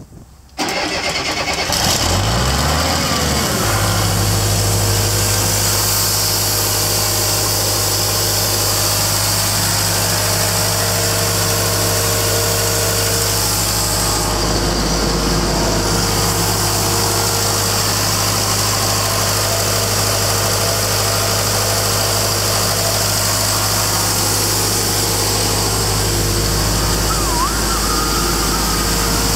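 John Deere 4045DF four-cylinder diesel in a portable air compressor starting about half a second in, its speed climbing for a few seconds before it settles into a steady idle.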